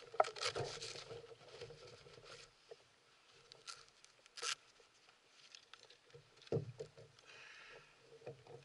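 Scattered small clicks, rustles and knocks of fishing gear being handled in a kayak while a hand-held fish scale is readied, with a duller thump a little past halfway.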